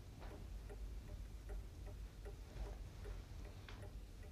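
A clock ticking steadily, about three ticks a second, over a low room hum.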